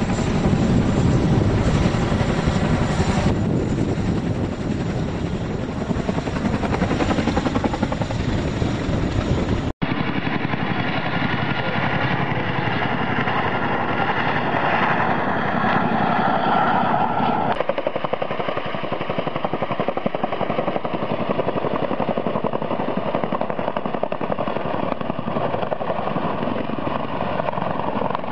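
Boeing CH-47 Chinook tandem-rotor helicopter: the steady thrum of its twin rotors and turbine engines, in spliced recordings. The sound breaks off abruptly about ten seconds in and resumes thinner, with less bass.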